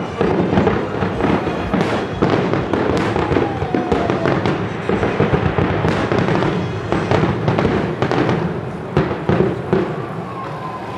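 Aerial fireworks going off in a dense, continuous barrage of overlapping bangs and crackles, several a second, with a few sharper, louder reports standing out.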